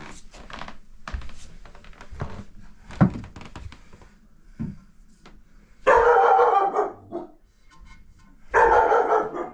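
A few knocks and thumps as the bar bumps around the door frame, then a dog barking loudly in two bouts, one past the middle and one near the end.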